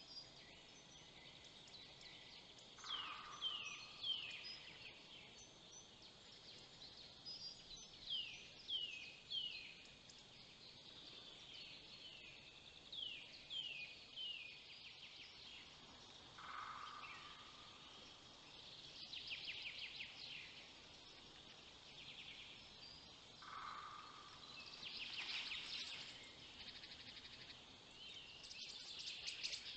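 Faint forest birdsong: repeated groups of three quick, falling whistled notes, with a few lower single notes and rapid trills in between.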